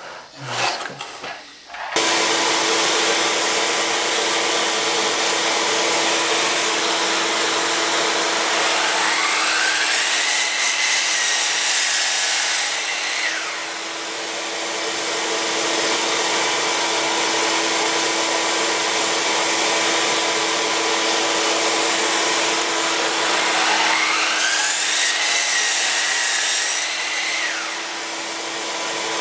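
Miter saw cutting wood twice over a steady machine noise that starts about two seconds in; each cut brings a whine that rises, holds for a few seconds and falls away.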